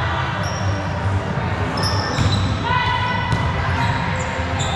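Volleyball game noise echoing in a gym: ball thumps, a few sharp impacts and short high squeaks of shoes on the court floor, with voices in the background.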